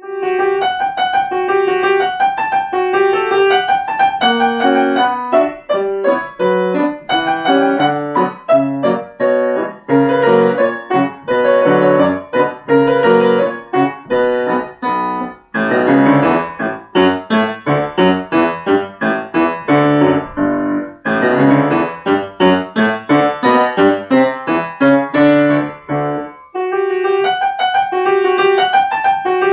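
Solo piano playing a brisk, lively children's piece, with a repeated-note figure under a bouncing melody, starting right at the opening.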